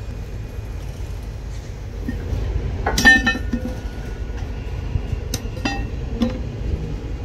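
Steel track fittings clanking on a railway turnout being installed. One loud ringing metal clank comes about three seconds in, followed by a few lighter clinks, over a steady low rumble.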